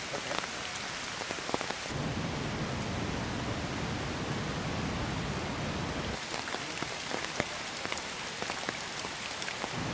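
Rain falling steadily on forest foliage and wet ground, with many scattered drips; the rain sound changes abruptly about two seconds in and again around six seconds in.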